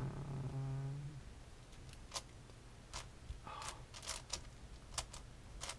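Plastic clicks and short rattles of a 7x7 Rubik's cube's layers being turned by hand, coming irregularly every half second or so. A short hummed voice sounds at the very start.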